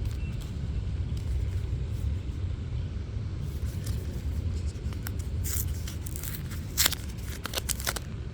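A steady low rumble, with crinkling clicks of a foil booster pack being handled starting about halfway and clustering near the end.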